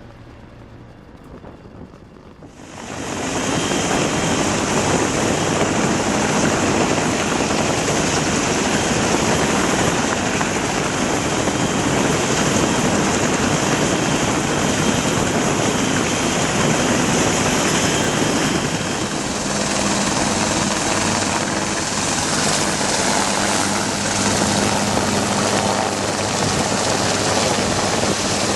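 Bell AH-1 Cobra attack helicopter running close by; the sound comes in loud and sudden about two and a half seconds in and then holds steady.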